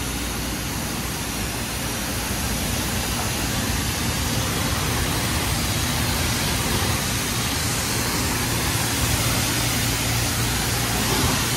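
Car wash pressure wand spraying water onto a pickup's painted bodywork: a steady loud hiss of spray, with a low hum underneath.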